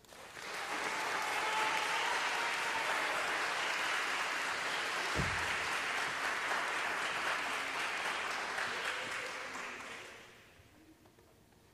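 Audience applause right after a song ends. It swells within the first second, holds steady, and dies away about ten seconds in, with one low thump about halfway through.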